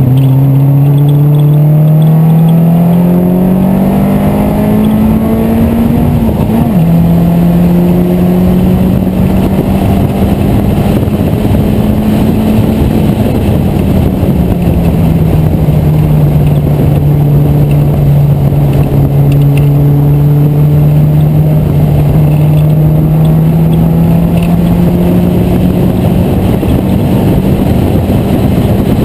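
Engine of a vintage British race car heard onboard from the open cockpit, pulling hard with the revs climbing. About six and a half seconds in there is an upshift with a sudden drop in pitch. It then runs at high revs, eases off a little about halfway through, and slowly builds again, with constant wind and road rush.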